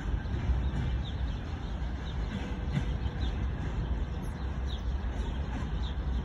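Freight train wagons rolling away along the track, a steady low rumble.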